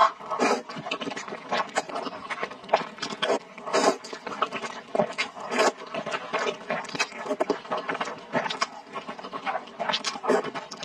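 Close-miked eating sounds: a person slurping and sucking in a long mouthful of noodles, with rapid wet mouth clicks and smacks several times a second.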